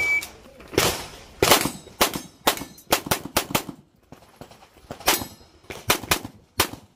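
Pistol shots fired in quick strings on an IPSC stage: about a dozen sharp cracks in groups of two to four, with short pauses between groups as the shooter moves between target arrays. A short beep sounds right at the start.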